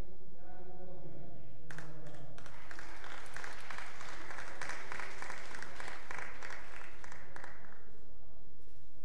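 Audience applauding as an award is handed over, breaking out about two seconds in, swelling, and dying away near the end. A voice is heard briefly at the start.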